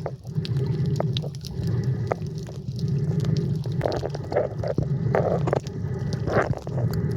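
Muffled underwater sound during snorkeling: a steady low rumble with scattered sharp clicks, and a few short bubbling gurgles about halfway through.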